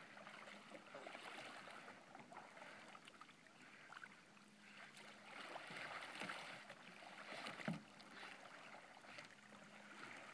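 Faint lake water lapping and splashing, with soft irregular splashes from a kayak being paddled and a dog swimming. One brief sharp knock stands out about three-quarters of the way in.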